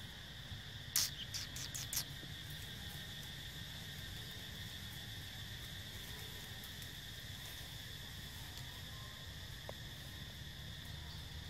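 Steady high-pitched drone of forest insects. About a second in, a quick run of five or so sharp clicks or snaps over about a second.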